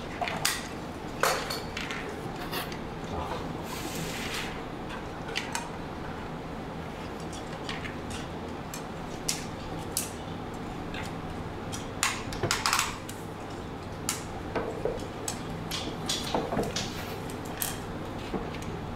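Small plastic action-figure weapon accessories being handled and set down on a display turntable: scattered light clicks and taps, with a couple of brief rustles.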